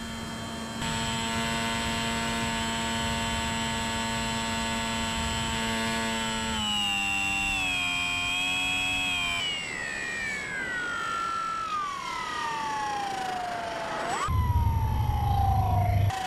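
Electric motor and propeller of a Bixler 3 RC plane whining at steady throttle, then winding down in a long falling pitch as the throttle comes back. It revs up briefly about 14 seconds in and falls again, and a loud low rumble sets in near the end.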